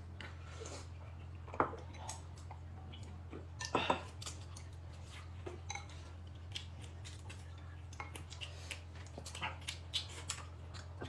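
Dishes and utensils clinking and tapping now and then during a meal, with a couple of louder knocks, over a steady low hum.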